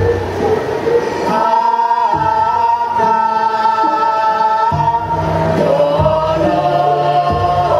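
Javanese karawitan vocal ensemble of young women singing together, holding one long note through the middle, with a lower part that drops out and comes back.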